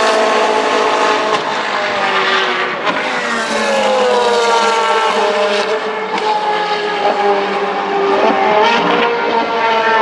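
Ferrari 458 Challenge's flat-plane V8 with a custom exhaust, running loud. Its note falls in pitch about three seconds in and climbs again near the end.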